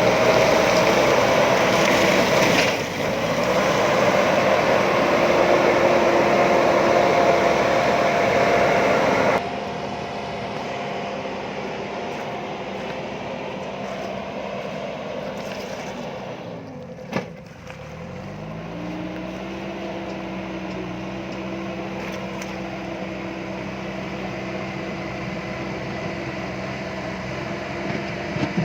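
JCB backhoe loader's diesel engine running steadily. About two thirds of the way through its pitch sags, a single knock sounds at the low point, and the pitch then climbs back.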